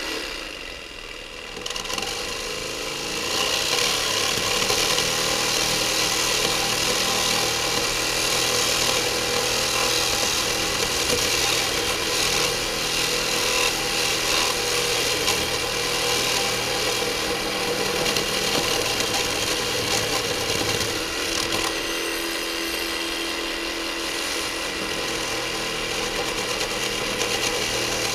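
Reciprocating saw cutting through a roll of galvanized wire hardware cloth, running steadily. It builds up over the first few seconds as the blade bites in.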